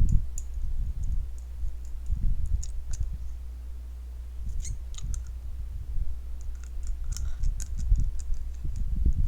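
Computer mouse clicking in small scattered clusters, over low, uneven thumps.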